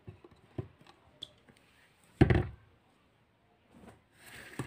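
Quiet handling of a cloth cover and a plate used as a pot lid: a few light taps, then one dull thump a little over two seconds in.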